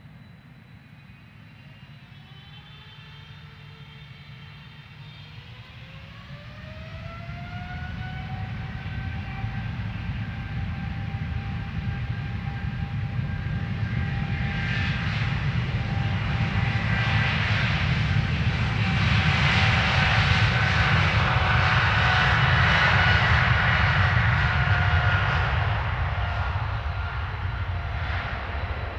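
Boeing 777-200LR's twin GE90 turbofans spooling up to takeoff thrust: a whine rises in pitch over the first several seconds and then holds steady. The jet noise builds as the airliner accelerates past on its takeoff run, is loudest about two-thirds of the way through, and eases near the end as the plane moves away.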